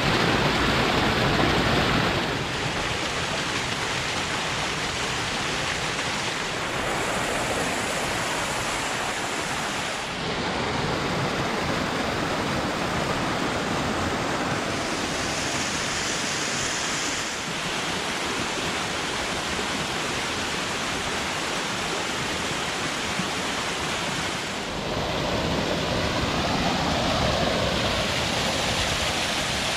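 Waterfall, fed by recent heavy rain, pouring down a cliffside and splashing into the wash below: a steady rush of falling water. Its tone and loudness shift a few times, at about 2, 10, 17 and 25 seconds in.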